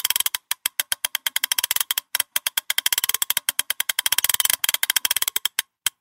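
A ratchet being cranked: rapid sharp clicks of the pawl snapping over the gear teeth, about ten a second and faster through the middle, ending with one lone click near the end.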